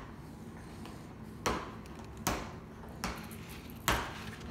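Hardcover picture book being handled on a stone countertop while its pages are turned: four light knocks, about one every 0.8 seconds.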